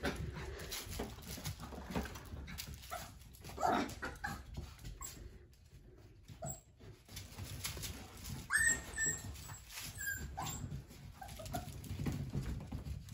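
Puppies at play giving short whimpers and yips, with one longer high-pitched squeal about eight and a half seconds in, over light scuffling and clicks.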